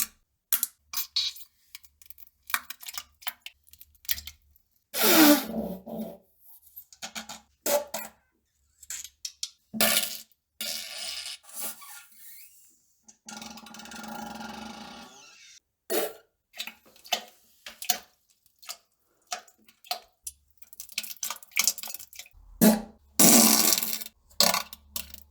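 Farts: a run of short sputters and sudden noises, with a few longer pitched ones, one falling in pitch about five seconds in and one held steady for about two seconds near the middle.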